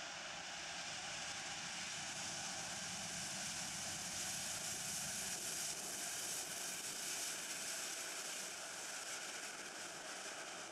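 Jet engines of a Boeing 747-8F freighter, a rushing noise that swells to a peak around the middle and then slowly eases as the aircraft passes.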